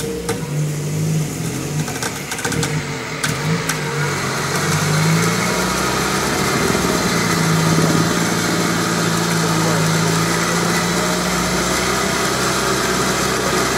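UAZ-469's engine running under load as the jeep crawls out of a muddy ditch. The engine note wavers for the first few seconds, then holds a steady pitch and gets a little louder from about five seconds in.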